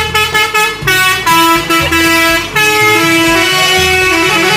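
A melody in a horn-like tone, held notes stepping from pitch to pitch, over a low pulsing beat.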